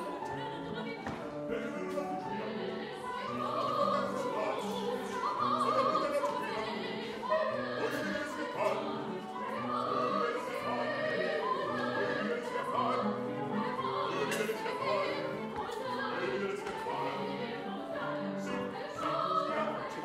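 Live opera singing: women's voices singing with vibrato, sometimes overlapping, over steady instrumental accompaniment.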